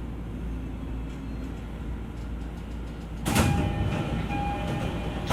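Inside an E231-series commuter train car at a station stop: a steady low hum, then, about three seconds in, a sudden loud rush of noise with chime-like tones as the sliding doors close.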